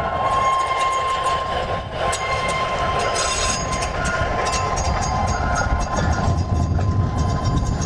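Steel rail wheels rolling on track: a steady squealing tone over a low rumble, with frequent sharp clicks.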